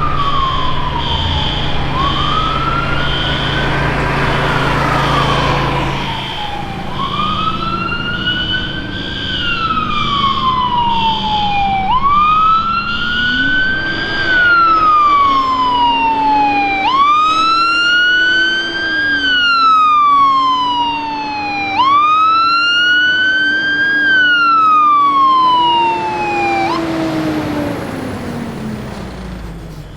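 Fire truck siren wailing: a quick rise in pitch and a slower fall, repeating about every five seconds, over a lower engine drone. A fast, high pulsing tone sounds through the first ten seconds. The siren winds down and fades away near the end.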